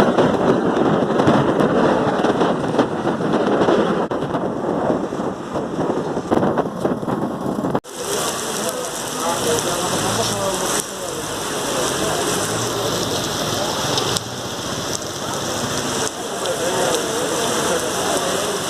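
Steady rain pouring and pattering on surfaces. About eight seconds in it cuts off for an instant, then comes back with a brighter, hissier sound.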